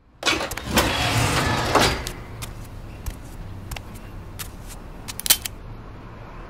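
Outdoor street noise with a loud rushing stretch over the first two seconds, then a bicycle being wheeled and mounted, with scattered sharp clicks and a quick cluster of clicks about five seconds in.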